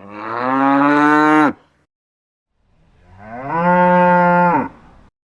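Cow mooing: two long, loud calls about a second apart, each ending in a quick drop in pitch.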